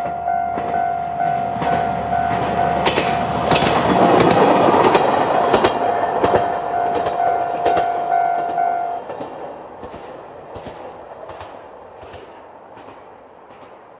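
Level-crossing warning bell ringing in even electronic dings about twice a second while a Moka 14 diesel railcar runs over the crossing. Its wheels clack over the rail joints, loudest about four to six seconds in. The bell stops about nine seconds in, and the wheel clacks fade away.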